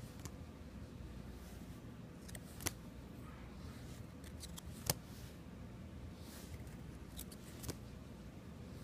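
Trading cards being handled: faint taps and slides of card stock, with two sharper clicks, about three seconds in and again near five seconds in, over a steady low hum.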